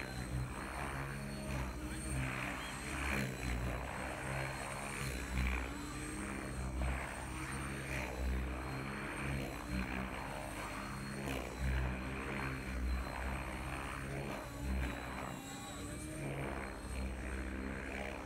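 Electric 700-size RC helicopter (TSA 700 with Spinblade 685 mm main blades) flying 3D freestyle: the main rotor chops and whooshes, swelling and fading every second or so as the blades load up through the manoeuvres, over a faint steady high electric whine.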